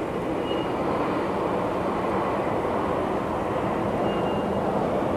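Steady low rushing background noise with no single clear source. A faint short high note sounds twice, once early and once about four seconds in.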